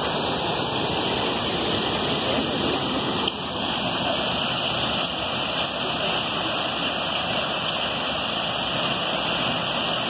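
Steady rush of a forest creek and a waterfall splashing into a narrow rock gorge: a loud, even wash of water noise that dips slightly about three seconds in.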